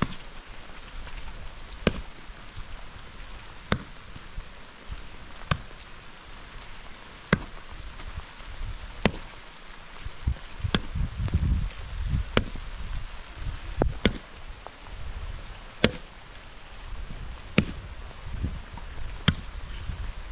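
Steady rain hiss, with a sharp knock repeating at an even pace about every second and three-quarters.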